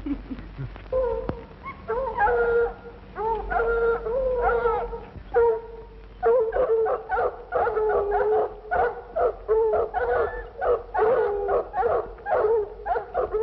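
A pack of dogs baying and barking, many calls overlapping, starting about a second in, on a thin, old film soundtrack.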